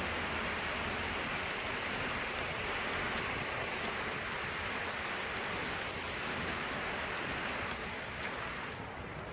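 Heavy rain and strong wind making a steady, dense rushing noise, easing slightly near the end.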